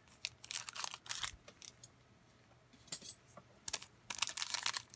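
A foil trading-card pack being cut open with scissors and its wrapper handled: scattered sharp snips and clicks, a short pause, then denser crinkling of the wrapper near the end.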